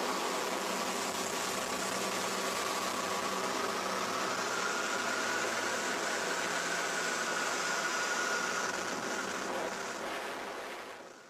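Tiger Moth biplane in flight: a steady engine drone mixed with rushing noise, fading out near the end.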